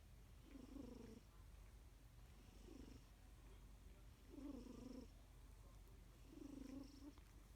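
Domestic cat's faint snoring purr, swelling four times, once with each breath about every two seconds.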